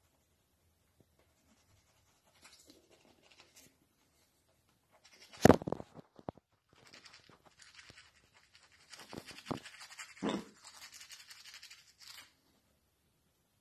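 Toothbrush scrubbing teeth in short spells of rapid brushing strokes. A sharp loud knock comes about five and a half seconds in, and a smaller one near ten seconds.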